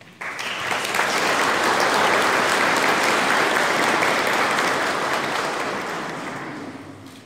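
Congregation applauding: many people clapping together, building up within the first second or two, then slowly dying away near the end.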